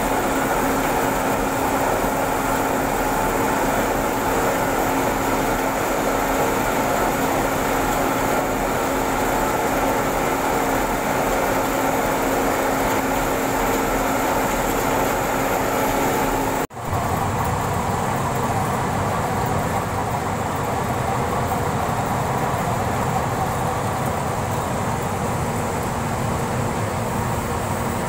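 Lignite belt conveyor running: a steady mechanical drone with several steady tones. About two-thirds of the way through it breaks off suddenly and turns into a lower, duller running noise of the loaded belt over its troughing idlers.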